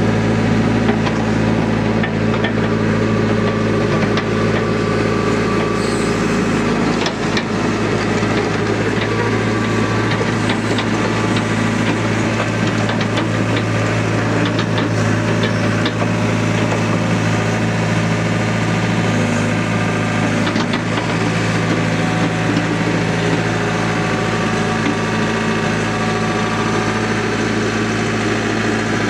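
Caterpillar E70B hydraulic excavator's diesel engine running steadily, with a few short clicks and clanks partway through.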